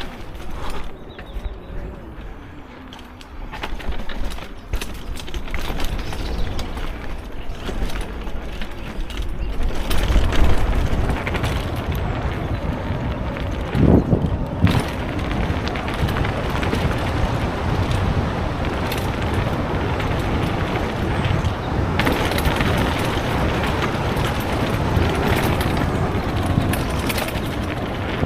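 Car being driven, engine and tyre noise. It is quieter with a few clicks and knocks in the first few seconds, then builds to a steady rumbling rush after about ten seconds, with a louder thump about fourteen seconds in.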